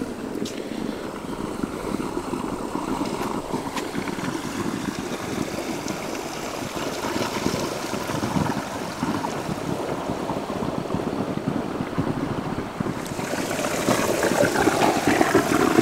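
Steady rushing of water spilling over the edge of a heated infinity pool into its grated overflow gutter, growing louder near the end.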